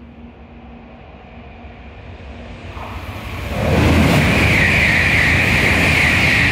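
N700-series Shinkansen passing through the station at high speed without stopping: a rush of noise that builds over the first few seconds and jumps sharply as the nose arrives about three and a half seconds in. It then holds as a loud, steady rush with a strong high hiss as the cars sweep past.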